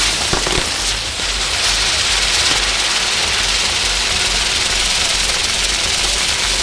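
Ground fireworks burning with a loud, steady hiss of spark-spraying jets over a low rumble.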